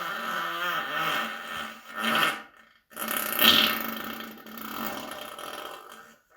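Two long farts. The first trails off about two seconds in, and after a short break the second starts, is loudest just after it begins, and fades out near the end.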